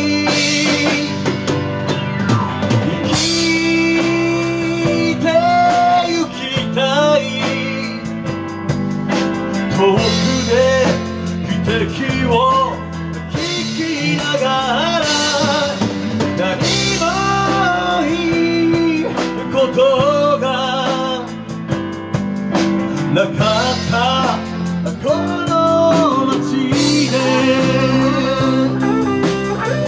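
Live band playing a song: a man sings into a microphone over keyboards, guitar and drum kit.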